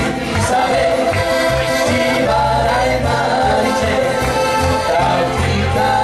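Live band music with singing over a steady bass line.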